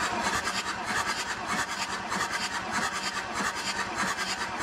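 Starter motor cranking an Audi 2.5 TDI V6 diesel (AKN) with all its glow plugs removed, a steady, rapid churning. This is the compression test of cylinder two, which builds to a healthy 24 bar.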